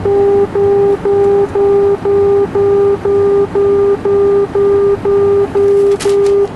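Outer marker beacon tone from the Citation's audio panel: a steady 400 Hz tone keyed in continuous dashes, about two a second. It signals that the aircraft is passing over the outer marker on the ILS approach.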